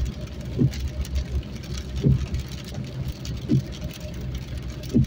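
Car running on a rain-soaked road, heard from inside the cabin: a steady low engine and tyre rumble under heavy rain on the glass. The windshield wipers sweep about every one and a half seconds, each pass a short pitched swipe.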